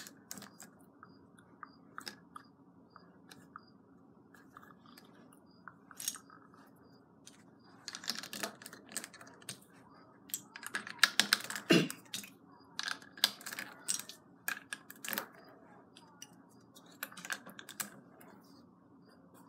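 Plastic LEGO bricks clicking and clattering as they are handled, picked through and pressed onto a baseplate. The clicks come in irregular bursts, busiest around the middle.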